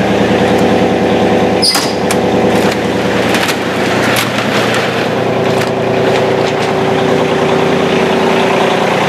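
John Deere 2520's three-cylinder diesel idling steadily shortly after a cold start. From about two to four and a half seconds in, there is a run of clattering and rattling as the overhead garage door is raised.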